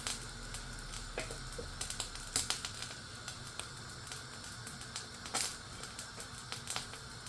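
Hot cooking oil in a pan ticking and popping irregularly over a faint steady hiss as it heats for a dal tempering, a few pops louder than the rest.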